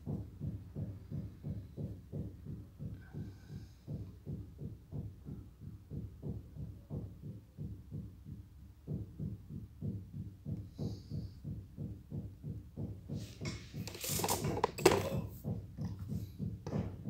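Diamond Selector II tester beeping in a steady run of about three pulses a second while its probe is held on a stone, the tester's signal for a diamond reading. About 14 seconds in, a short clattering handling noise is the loudest sound.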